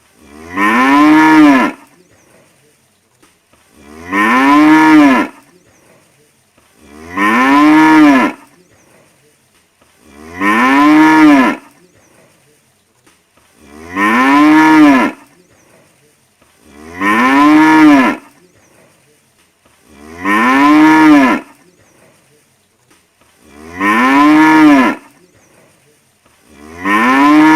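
Cow mooing: one long moo that rises and then falls in pitch, repeated nine times at even intervals of about three seconds.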